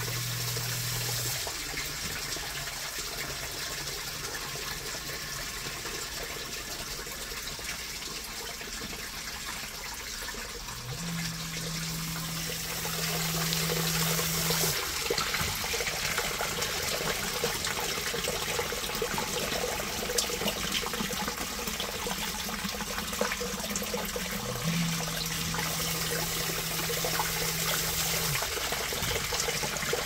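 Water pouring and trickling into a sump pit from the drain-tile inlet, around a submersible sump pump that is running nonstop to keep up with the inflow; the splashing gets louder about twelve seconds in. A low hum comes in briefly three times.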